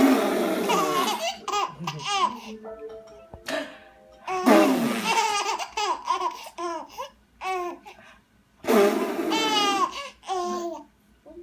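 Five-month-old baby laughing in three long bursts of high, squealing giggles and belly laughs, set off by mouth-fart noises.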